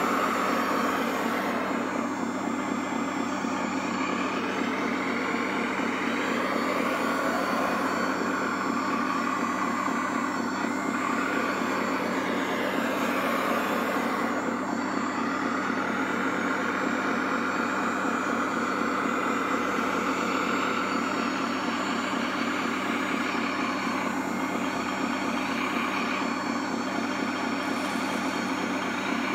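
RC scale wheel loader and truck running, with the steady electronic diesel-engine sound of their sound modules. A higher motor whine rises and falls every few seconds as the loader drives and works its bucket.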